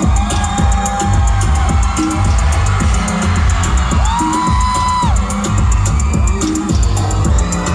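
Loud pop music played over a concert PA: a heavy kick drum and bass carry a steady beat under fast, even hi-hat ticks. Held pitched notes, from synth or voice, come in about four seconds in.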